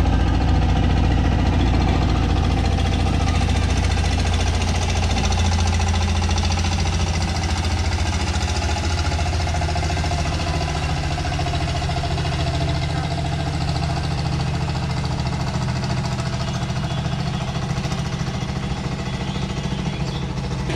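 Engine running steadily with a fast, even beat, its tone shifting slightly lower about five seconds in.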